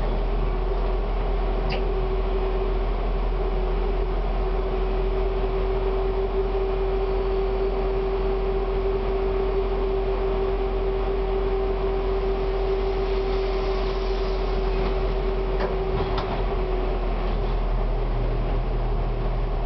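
Konstal 105Na tram standing still with its electrical equipment humming and a steady mid-pitched whine, which fades near the end as the tram starts to move off.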